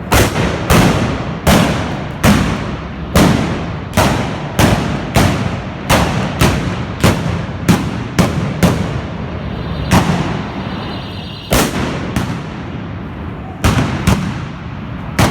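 Trabucs (blunderbusses loaded with black powder) firing blank charges in a volley of about twenty loud blasts, each trailing off in an echo. The shots come close together, one or two a second, for about nine seconds, then grow scattered, with a last pair and a single shot near the end.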